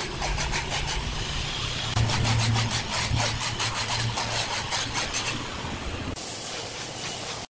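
Wood scraping and rubbing in quick, repeated strokes over a steady low machine hum; about six seconds in, it gives way to an even hiss.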